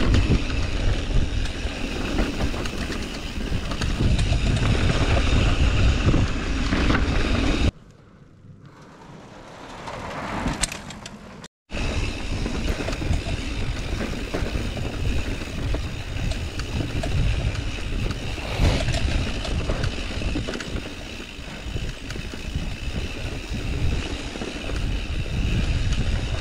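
Mountain bike riding down a muddy dirt trail, heard through an action camera: steady wind rumble on the microphone with tyre and bike rattle. About eight seconds in it drops much quieter for a few seconds, then cuts out briefly before the riding noise picks up again.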